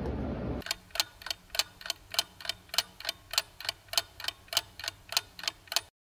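Clock ticking sound effect: sharp, evenly spaced ticks about three a second, starting after a brief moment of room noise and cutting off abruptly near the end.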